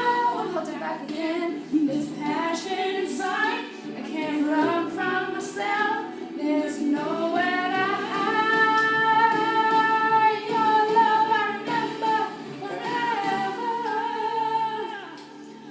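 A woman singing a cappella, with a long held note about halfway through.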